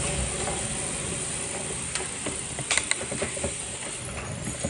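A pack of gravel bikes riding off together: a steady hiss of tyres and wind with the mechanical ticking of freewheel hubs. A few sharp clicks come nearly three seconds in.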